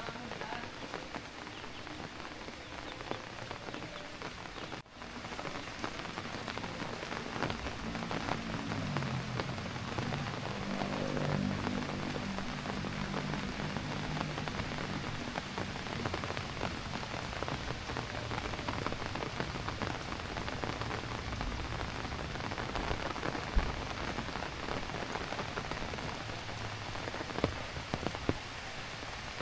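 Heavy rain falling steadily, a dense patter of drops on surfaces. A low hum rises in and fades out again between about 8 and 16 seconds in, under the rain.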